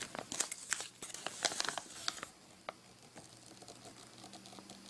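Crinkling and rustling of a small rolled-up knot guide being handled, with a quick run of light clicks over roughly the first two seconds, then it goes quiet.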